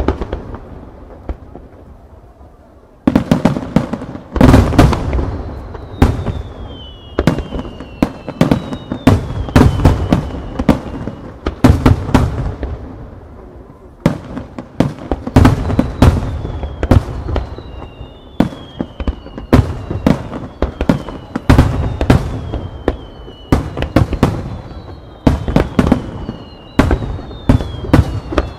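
Starmine fireworks barrage: many sharp bangs of shells bursting in quick succession, with high whistles falling in pitch through much of it. The bangs thin out for a couple of seconds near the start, then come thick again.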